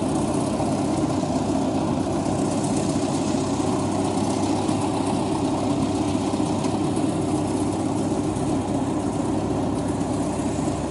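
FMWorld WD 102pro rice combine harvester's engine running steadily under load as the machine cuts rice, a continuous low drone.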